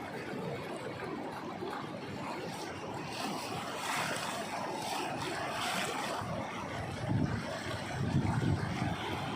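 Floodwater of a swollen river rushing, a steady roar of water, with wind buffeting the microphone in low gusts during the last couple of seconds.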